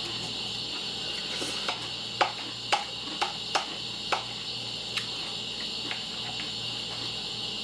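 Cereal being eaten from a bowl: a run of about seven sharp clicks and crunches over a few seconds, then a few fainter ones. Under them runs a steady high-pitched buzz.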